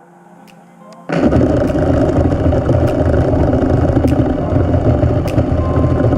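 FPV quadcopter's motors and propellers, starting abruptly about a second in and then buzzing loudly and steadily.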